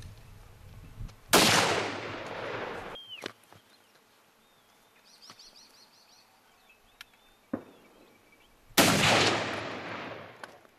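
Two hunting rifle shots about seven and a half seconds apart, each echoing and dying away over about two seconds.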